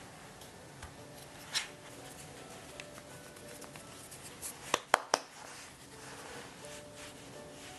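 Hands shaping powder-dusted mochi for daifuku over a metal tray: soft handling sounds with a light tap early on, then three quick sharp taps in a row about five seconds in.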